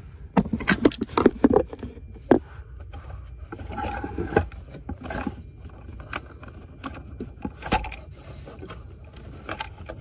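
Hard plastic centre-console trim of a 2011 Nissan Pathfinder being handled and fitted back in place: a quick run of clicks and knocks in the first couple of seconds, then scattered scrapes and lighter clicks, with one more sharp click later on.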